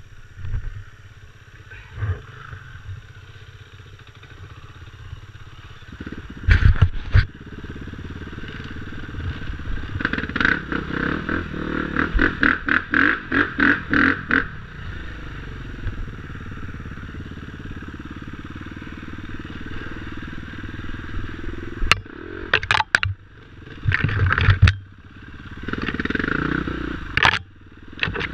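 KTM 250 EXC-F four-stroke single-cylinder enduro bike running along a rough trail, the engine surging in a quick series of throttle pulses around the middle, with several sharp knocks and clatter as it rides over the bumps.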